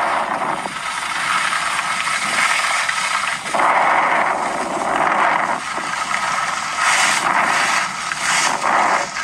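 Audio of a skiing video played back through a phone's small speaker: wind rush and skis scraping over snow, a thin hiss with no bass that swells louder about four seconds in.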